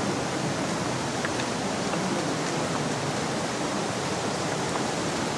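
Steady, even rush of water from the falls or the river beside the trail.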